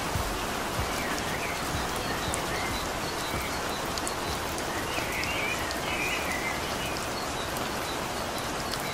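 Steady rain falling, with birds chirping now and then, a few clearer chirps about five to six seconds in.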